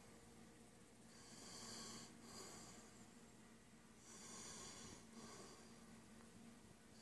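Faint, slow breathing close to the microphone, a breath about every three seconds, over a low steady hum.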